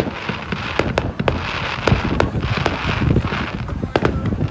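Aerial firework shells bursting in a string of sharp bangs and crackles, two or three a second.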